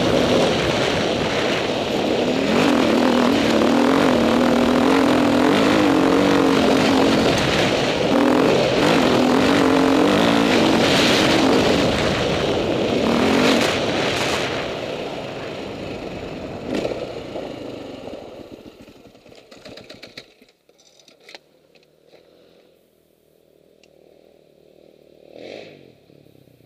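Dirt bike engine running under way on a dirt trail, its revs rising and falling, then easing off from about halfway and cutting out about three quarters through. Near the end another motorcycle is faintly heard swelling and fading.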